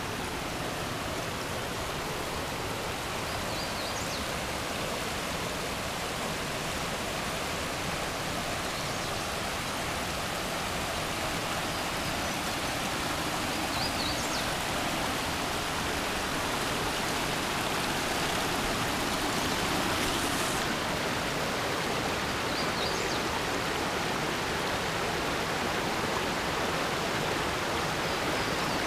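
A rocky mountain creek flowing over boulders and small cascades: a steady, even rush of water. Three brief, faint high chirps come through it, spaced about ten seconds apart.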